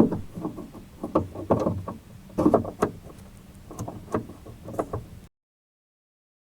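Irregular clicks and knocks from the plastic exterior door handle being worked out of the car door and handled. The sound cuts off to dead silence about five seconds in.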